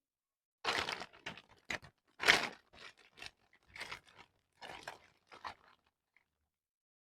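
Close-miked crackling and crunching in a run of short, uneven bursts, the loudest a little over two seconds in, from packaging or produce being handled, torn or cut.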